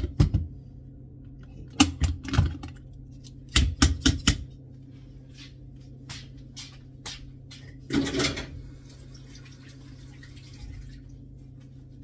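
Wire beaters of a hand mixer knocked against the rim of a stainless steel bowl in three quick clusters of sharp taps, shaking off batter; the mixer is switched off. Fainter clatter follows, and a brief rush of noise comes about eight seconds in, over a steady low hum.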